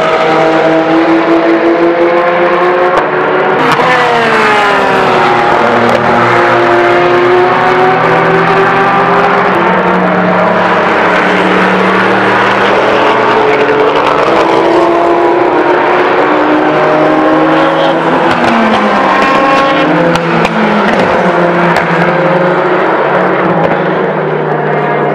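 Endurance race cars, GT cars and Le Mans prototypes, passing at racing speed, several engines overlapping as they rev and shift gears. The engine pitch drops as cars go by, most clearly about four seconds in and again near twenty seconds.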